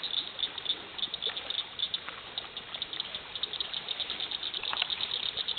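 Rapid high-pitched chirping from insects, many short chirps a second, with a few faint clicks.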